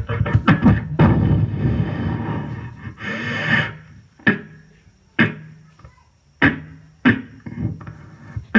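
Beatboxing: a dense run of mouth-made beats and effects for about three and a half seconds, then sparse single hits about once a second, each dying away quickly, over a low steady hum.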